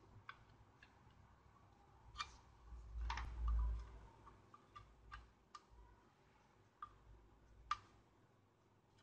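Faint, irregular small clicks and ticks, about a dozen, from a soldering iron tip and a circuit board being handled while a capacitor is soldered onto an LCD monitor's power-supply board. A low bump of handling noise a little after three seconds is the loudest sound.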